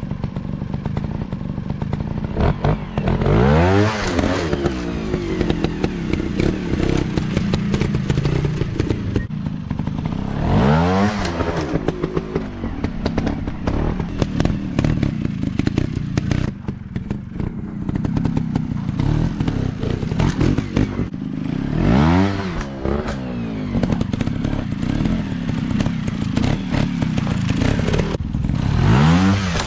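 Small trail motorcycle engine running, its revs rising and falling four times. Frequent knocks and clatter run through it.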